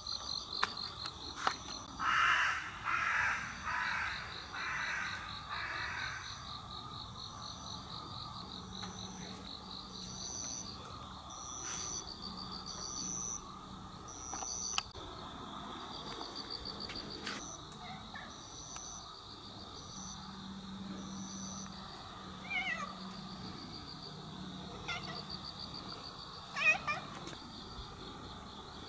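Night insects trill steadily in a pulsing, high chorus. About two seconds in, a crow gives five harsh caws in a row, about one a second. Near the end come two short cries.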